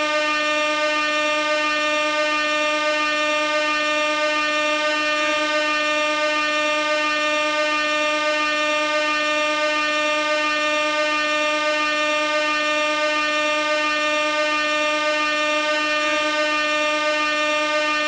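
Gas air horn held in one unbroken blast at a single steady pitch.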